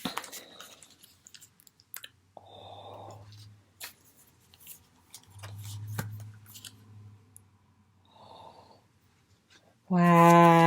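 Light rustling and clicks of postcards in plastic sleeves being handled. Near the end a drawn-out spoken 'wow' breaks in and is the loudest sound.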